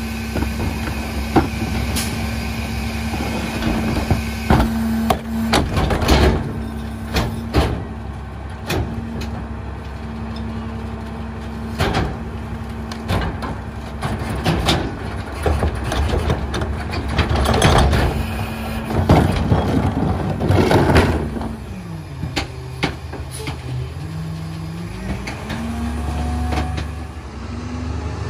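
Rear-load garbage truck's diesel engine running steadily at a raised idle while trash is loaded, with repeated sharp clanks and bangs. About 22 seconds in the engine note drops, then rises in steps as the truck pulls away and accelerates through its gears.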